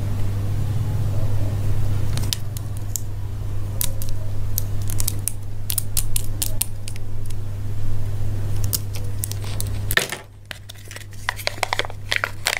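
Small plastic toy figures clicking and tapping against each other and the fingers as they are handled, over a steady low hum. The hum stops about ten seconds in, and foil wrapping on a chocolate egg then starts crinkling in quick crackles.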